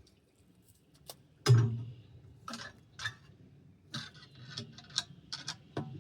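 Irregular knocks and clatters of sticks and mud being pulled and dug out of a culvert clogged by a beaver dam, with one louder thud about a second and a half in.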